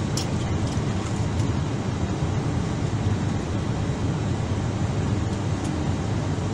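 Steady low rumble inside the cabin of an Airbus A319 taxiing after landing, its engines at idle.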